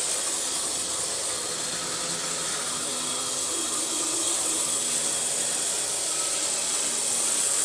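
Graham Farish N-gauge Class 101 DMU motor car running along the track on newly replaced gears: a steady, high-pitched whirring hiss from its small motor and gear train with the wheels on the rails.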